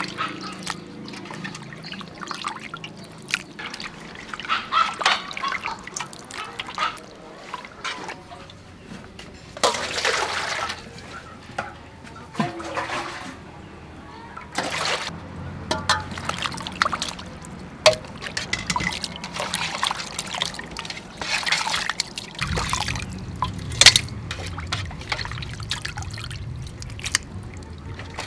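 Water splashing and trickling as cuttlefish are washed by hand in a metal basin and rinsed into a stainless steel colander, with scattered sharp knocks of metal bowls being handled.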